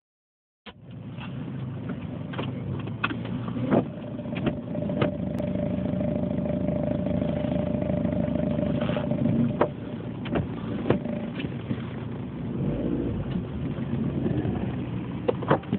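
A car running steadily, with a higher steady tone over the rumble for several seconds in the middle, and scattered sharp clicks and knocks throughout.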